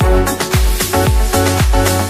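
Background electronic dance music with a steady beat: a deep bass drum that drops in pitch on each hit under sustained synth chords.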